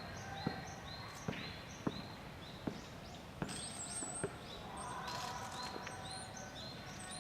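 Great spotted woodpecker pecking at wood: single sharp knocks about once a second, not a drumming roll. Repeated high chirping bird calls go on underneath.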